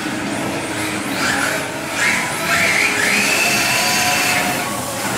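Radio-controlled drift cars sliding through a corner, their hard tyres squealing in several drawn-out squeals, the longest lasting about a second and a half, over the whine of their electric motors rising and falling.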